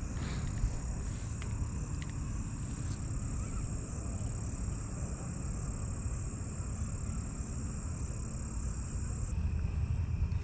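Lakeshore ambience: wind rumbling on the microphone under a steady high-pitched insect drone, with a few faint clicks in the first two seconds.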